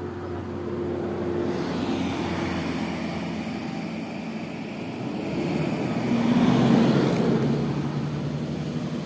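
A motor vehicle's engine running with a steady low hum, growing louder to a peak about six to seven seconds in, then easing off.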